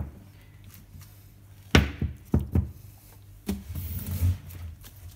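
Monitor speaker cabinet being handled and tipped over on a workbench: a run of dull thumps and knocks, four close together about two seconds in, then more low knocks and rumbling a second or so later.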